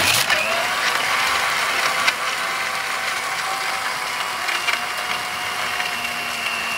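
Electric countertop blender switched on and running steadily, blending a drink in its plastic jar. It starts abruptly as it is switched on and keeps an even pitch and level throughout.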